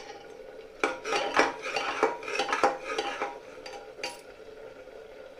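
Steel spoon scraping and knocking against the inside of a metal pressure cooker while stirring a thick onion-tomato gravy being cooked down to dry off its water. A quick run of scrapes and clinks starts about a second in and lasts some two seconds, with one more knock about four seconds in.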